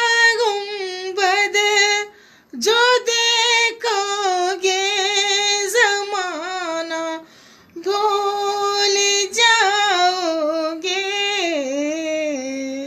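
A woman singing an Urdu devotional nazm unaccompanied. She sings three long drawn-out phrases with ornamented, wavering pitch and short breaths between them. The last phrase steps down in pitch near the end.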